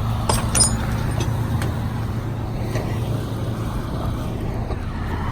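Big-rig diesel engine idling steadily, with a few light metallic clicks in the first second.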